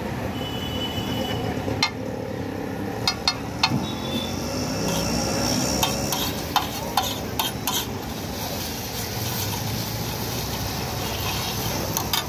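Steel spoon clicking and scraping on a hot flat iron tawa as butter and pav bhaji masala are spread around it, with sizzling. Most of the clicks come between about two and eight seconds in.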